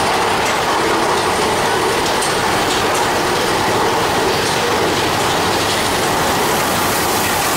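Mine-train roller coaster climbing a lift hill: the lift chain clanks steadily and the anti-rollback ratchet clicks under the train.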